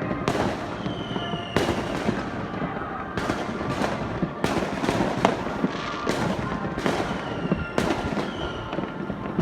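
Fireworks bursting in the sky in an uneven series of sharp bangs, roughly one to two a second, over a steady background of noise.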